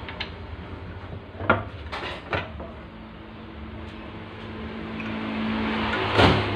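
Metal clanks of a bench vise and steel parts being handled while a motorcycle pulley is set in the vise to press on a new bearing: a few sharp knocks, then a louder short scraping clatter near the end, over a low background hum that grows louder.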